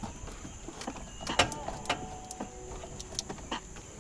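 Hand tools clicking and knocking on metal in a pickup's engine bay while a bolt is worked loose from the clutch master cylinder mount at the firewall. The clicks are irregular and scattered, with the sharpest knock about a second and a half in.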